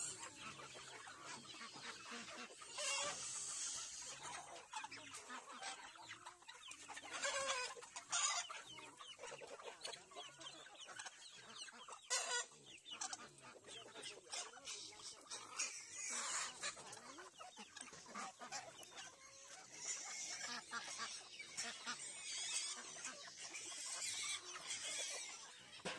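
A mixed backyard flock of chickens clucking, with calls coming irregularly, on and off.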